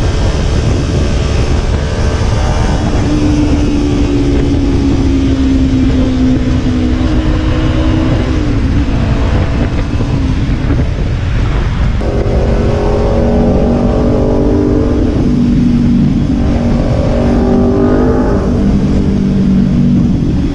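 Kawasaki Ninja 300 parallel-twin engine pulling the bike along through an aftermarket slip-on exhaust. Its note sags slowly at first, then rises and drops a few times in the second half as the bike shifts gears. Wind rumbles on the helmet-mounted microphone.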